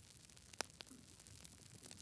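Campfire crackling: a few sharp pops and snaps, the loudest about half a second in, over a faint hiss.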